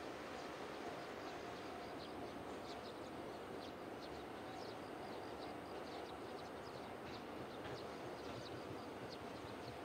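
DE10 diesel-hydraulic locomotive's V12 diesel engine running, a faint steady hum as the locomotive approaches slowly with its freight train. Birds chirp in short high notes over it.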